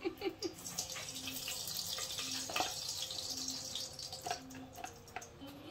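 Ghee sizzling and crackling as it melts in hot oil in an aluminium pressure cooker: a hiss that swells about a second in and dies away toward the end.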